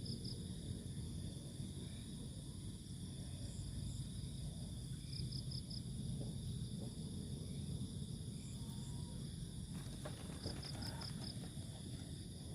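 Night insect chorus of crickets: a steady shrill trill, with a short run of four quick chirps repeating about every five seconds, over a low rumble.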